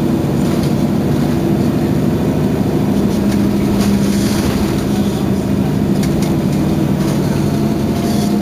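Mercedes-Benz Citaro city bus's diesel engine idling steadily while the bus stands parked.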